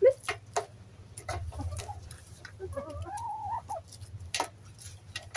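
Domestic hens clucking, one giving a drawn-out wavering call near the middle, with a few sharp taps, the loudest right at the start.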